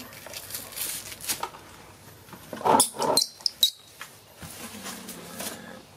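Baby macaque giving short, high-pitched squeaks and cries about halfway through, amid rustling from being handled.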